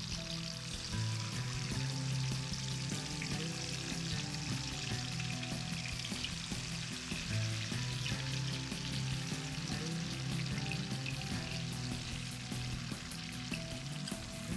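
Masala-marinated fish pieces frying in hot oil in a wok: a continuous sizzle with a fine crackle of spattering oil as more pieces are laid into the pan.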